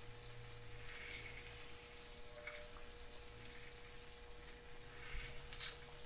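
Fresh orange juice squeezed by hand, trickling and dripping into a hot oiled cast-iron skillet with a faint patter and sizzle. A brief louder spatter comes near the end.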